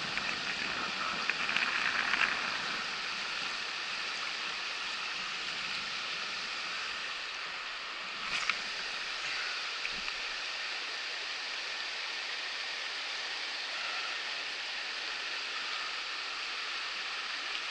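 Shallow river riffle, water rushing steadily over rocks, with a brief click about eight seconds in.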